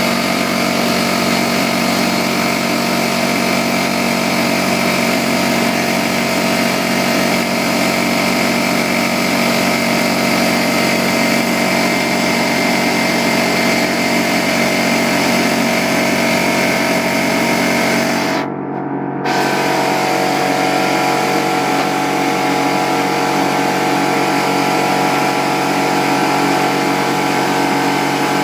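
Porter-Cable air compressor running steadily and loudly, its motor and pump filling the tank as the pressure builds toward the 150 psi shut-off. The sound briefly drops out for under a second about two-thirds of the way through.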